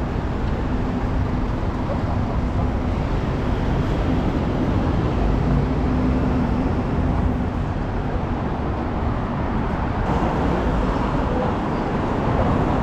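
City street traffic: a steady rumble of cars and taxis driving and idling, with a low steady hum through roughly the first half.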